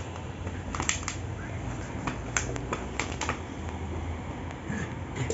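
A dog biting a plastic bottle wrapped in cloth, the bottle crackling and clicking sharply under its teeth. The clicks come irregularly, a cluster about a second in and a quicker run from about two to three and a half seconds in.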